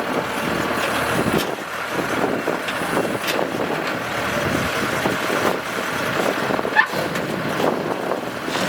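Kubota DC-105X combine harvester running: a steady engine-and-machinery drone with a thin whine and a few brief clicks.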